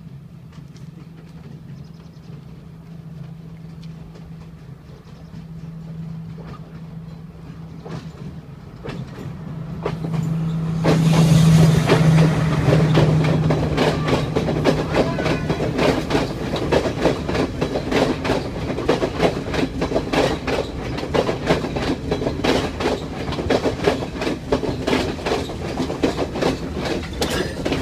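Diesel passenger train approaching, its engine hum growing louder, then passing close from about eleven seconds in with a rapid clatter of wheels over the rail joints as the carriages roll slowly by.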